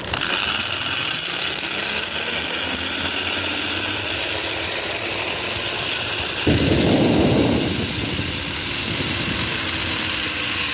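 Zip line trolley running along a steel cable: a steady whirring rush with a faint hum that rises in pitch and later falls away. About six and a half seconds in, a louder low rush lasts about a second.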